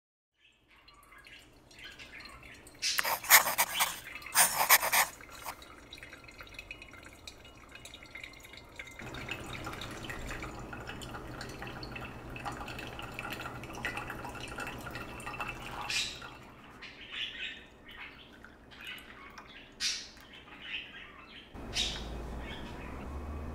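Pour-over coffee being brewed: hot water trickling steadily from a gooseneck kettle onto coffee grounds in a paper filter, then brewed coffee poured from a glass server into a cup in short splashes. Two short loud noises come a few seconds in, before the pouring.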